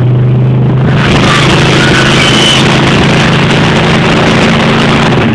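Pontiac 350 (5.7 L) V8 of a 1973 Pontiac Ventura running loud at steady revs during a burnout, with the rear tire spinning and smoking.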